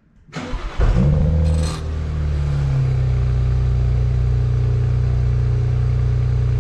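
BMW N54 twin-turbo 3.0-litre straight-six, freshly flashed with an MHD stage 1 tune, heard at the exhaust tips as it starts: a short crank, then it catches with a rev flare and settles to a steady idle about three seconds in.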